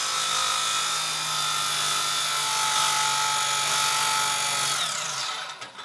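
Old electric power saw running steadily as it cuts through wood, then winding down with a falling pitch about five seconds in. The saw is struggling to push through the cut and keeps stopping.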